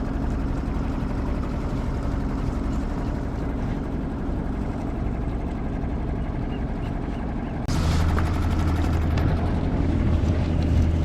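A small boat motor running steadily on the water. About eight seconds in, the sound cuts off for an instant and comes back louder and deeper.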